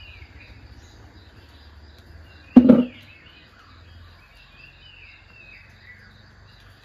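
Misty morning outdoor ambience: birds call with short falling whistles several times over a faint steady high-pitched buzz. One short, loud sound stands out about two and a half seconds in.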